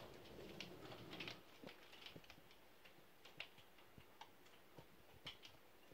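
Hailstones striking the window and nearby surfaces, heard from indoors as irregular sharp ticks: a denser patter in the first second or so, then scattered separate ticks.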